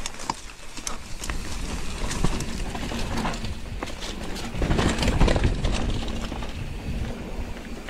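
Mountain bike rattling and clattering over a rough dirt trail, with irregular knocks and a low rumble that is loudest about five seconds in.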